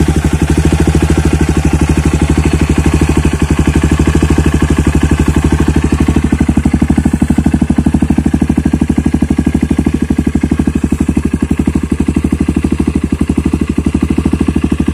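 Honda CRF150L's air-cooled single-cylinder fuel-injected engine idling steadily, an even run of firing pulses. The owner says this is simply how this engine normally sounds.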